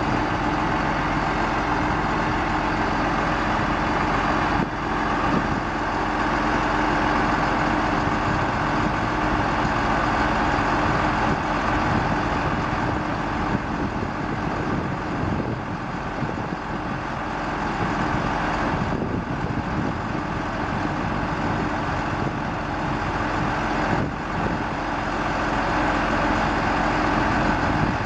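Sterling L7500 truck's Cummins 5.9 L inline-six diesel idling steadily.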